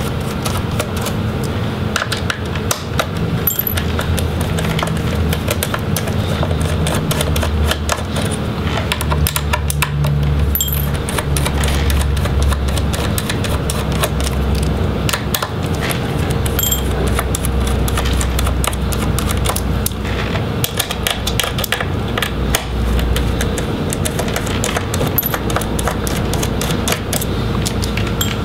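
Screwdriver backing out the laptop's metal display-hinge screws: dense small metallic clicks and ticks of the tool on the screws and hinges, over a steady low hum.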